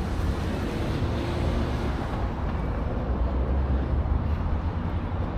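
Steady road traffic noise: a low rumble of passing cars, with one vehicle's engine hum standing out between about half a second and two seconds in.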